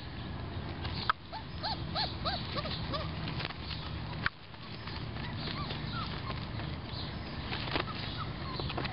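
Four-week-old puppies giving a quick run of short, high yips a little after the start, with a few fainter ones later and several sharp knocks.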